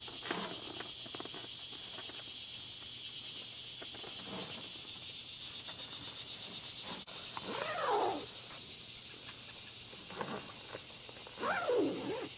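Steady, high-pitched insect chorus, with a few short pitched calls falling in pitch over it, the loudest about eight seconds in and again near the end.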